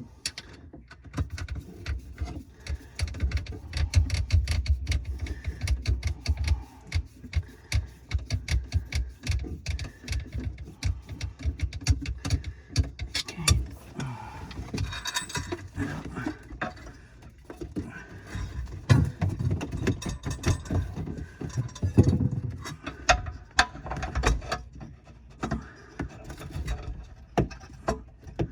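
Irregular clicking, rattling and knocking of hand tools and metal parts being worked, as on a garbage disposal's wire connection and strain relief clamp, with a few heavier knocks.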